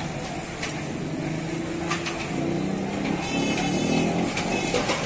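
Busy street traffic, mostly motorcycle engines running and passing, with a few short clicks.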